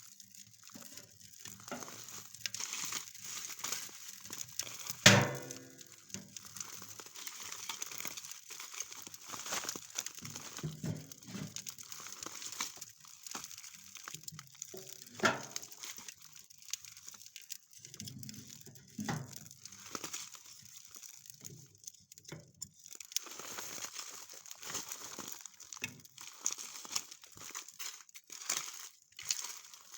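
Irregular crinkling and crunching of gear being handled in frost and snow while an ice-fishing tent is set up. There is a sharp knock about five seconds in and a smaller one near fifteen seconds.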